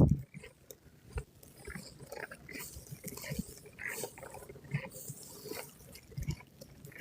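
Footsteps crunching in snow, a string of short soft crunches.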